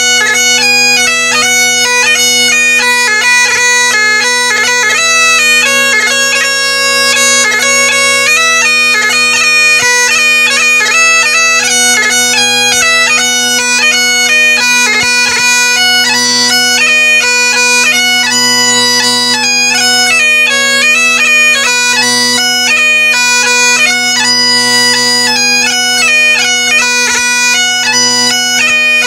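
Great Highland bagpipe playing a traditional Scottish tune: the chanter's melody changes note constantly over the steady, unbroken hum of the drones.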